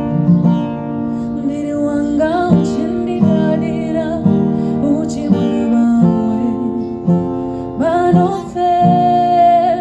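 A song playing: a singer's voice with wavering held notes over strummed guitar and a steady beat of low bass notes.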